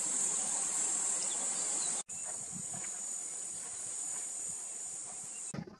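A steady, high-pitched shrill of insects in the bush. It breaks for an instant about two seconds in and stops near the end.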